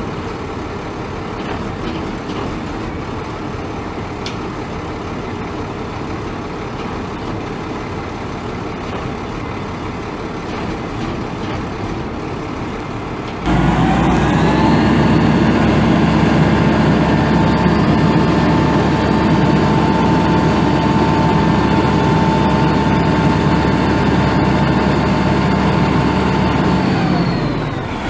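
International DT466E inline-six turbo diesel running at a steady idle. About halfway through it turns suddenly louder and higher with a steady whine, and near the end the sound drops back down.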